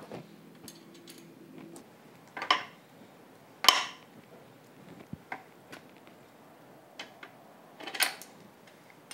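Metal scooter parts and hand tools clinking and knocking now and then as a mobility scooter's transaxle is put back together by hand. There are about four louder knocks, the loudest a little before four seconds in, with light clicks between them.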